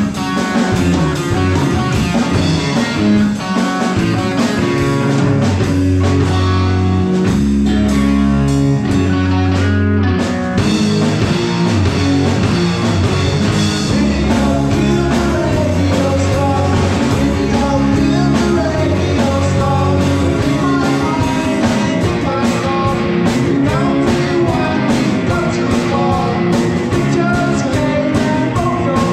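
Small rock band playing live: electric guitars, bass guitar and a drum kit, with singing, at a steady beat.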